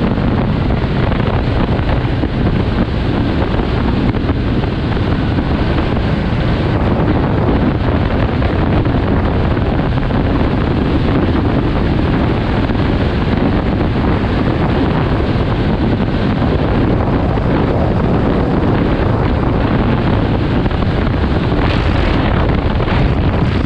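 Steady wind rush buffeting the microphone of a motorcycle riding at road speed, with a brief louder rush near the end.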